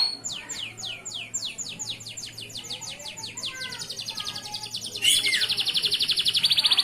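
Male canary singing: repeated downward-sweeping whistled notes that speed up into a quick trill, then about five seconds in a louder, very rapid trill.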